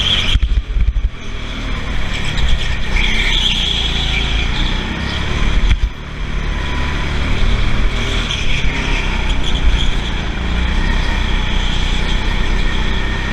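Onboard sound of an indoor go-kart being driven hard around corners: the kart's motor and rumbling chassis run continuously, with a high squeal coming and going through the turns. The sound dips briefly just after the start and again about six seconds in.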